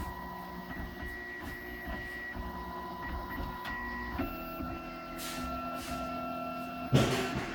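RoBo 3D printer's stepper motors whining in several steady tones as the print head moves. The pitch jumps to a new set of tones about four seconds in as the moves change. A short, loud knock comes near the end.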